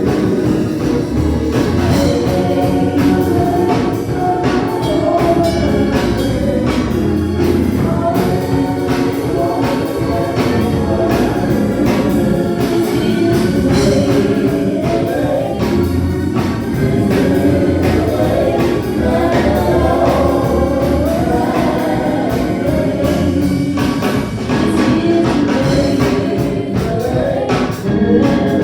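Gospel praise song sung by a choir, with a steady beat and a bass line.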